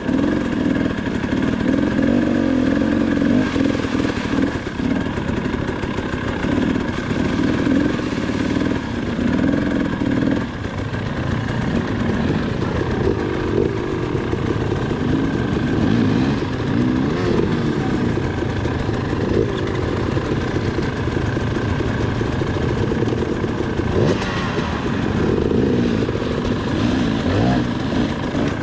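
KTM 300 XC-W two-stroke dirt bike engine running under the rider, its revs fairly even for the first ten seconds or so, then rising and falling in short blips of the throttle.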